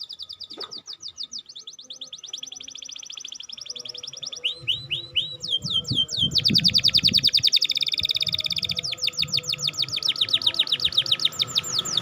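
Domestic canary singing in rapid trills of repeated short chirps, switching to a new trill every second or two, with a faster, louder trill from about six seconds in.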